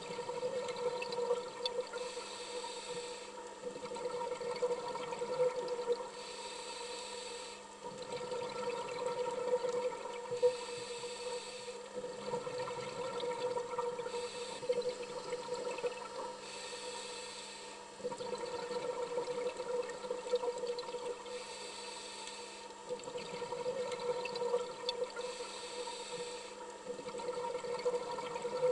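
Underwater recording: scuba breathing through a regulator, a rushing hiss of exhaled bubbles that swells and fades every few seconds, over a steady hum.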